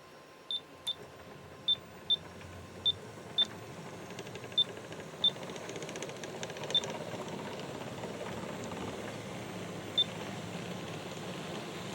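G-scale model train pulling away: the running noise of its locomotives and 42 hopper cars on the track builds up gradually. About ten short, sharp, high beeps at uneven intervals sound over it, most of them in the first half.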